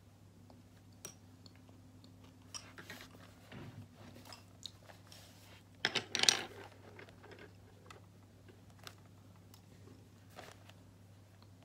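Someone eating yogurt: scattered small clicks and mouth noises from the spoon and eating, with a louder burst about six seconds in. A steady low hum runs underneath.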